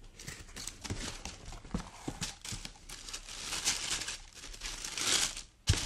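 A cardboard gift box being opened by hand: taps and scrapes from the lid, then tissue paper rustling and crinkling inside. A single sharp thump near the end.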